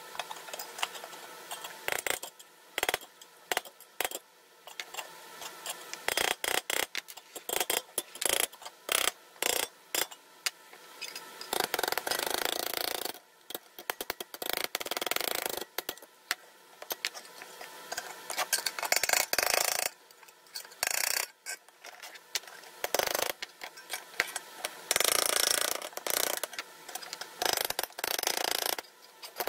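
The pressed-steel dump bed of a 1950s Tonka toy truck being hammered straight on a small anvil: many quick, irregular metal taps, broken by stretches of denser noise.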